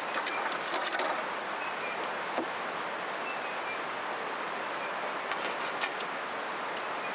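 Steady rush of a flowing river, with sharp crackles and pops from a wood campfire, a quick run of them in the first second and a few single pops later.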